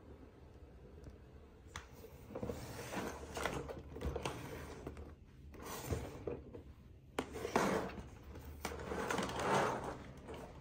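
Hands handling and rustling packaging, in several uneven bursts of rustling with a few sharp clicks among them.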